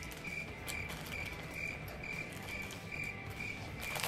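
Cricket chirping, one steady high-pitched chirp about twice a second, with a few sharp clicks scattered through.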